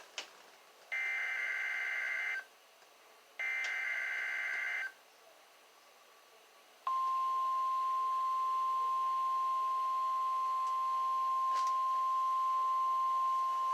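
NOAA Weather Radio Required Weekly Test, heard through a weather radio's speaker: the end of one and then two more of the SAME digital header bursts, harsh two-pitch data warbles about a second and a half each with a second's gap between them. After about two seconds of quiet, the steady single-pitch 1050 Hz warning alarm tone starts about seven seconds in and holds.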